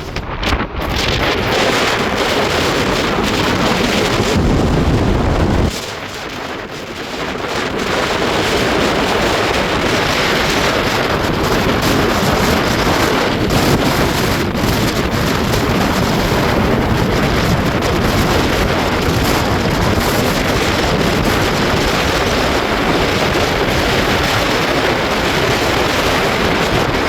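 Gale-force storm wind buffeting the microphone over the rush of heavy surf. It eases briefly about six seconds in, then builds back and holds steady.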